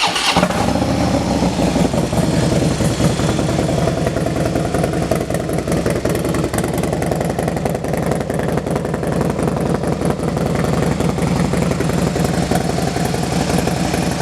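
Harley-Davidson Dyna Low Rider S's Screaming Eagle 110 cubic inch V-twin, just started and running steadily through an aftermarket Vance & Hines exhaust.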